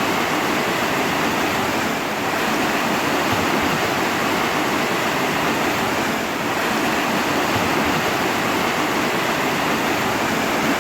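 Steady rushing water, a dense even hiss with no distinct splashes or drops, dipping slightly twice.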